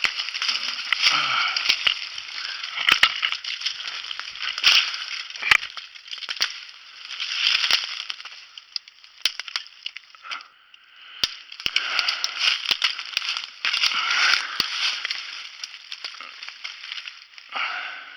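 Footsteps crunching through dry leaf litter and brush, with irregular snaps of twigs, coming in uneven swells of steps with a short pause about ten seconds in.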